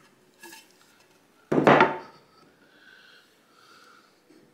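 A wooden board knocked down onto a workbench: one loud, sharp wooden knock about one and a half seconds in, after a faint click.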